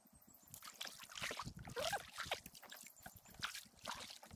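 Kayak paddle strokes: the blades dipping into calm water with water dripping and trickling off them. A brief rising chirp about two seconds in.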